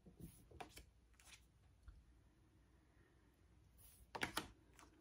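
Faint handling of oracle cards: brief soft slides and taps of card stock, a few in the first second and a louder cluster about four seconds in.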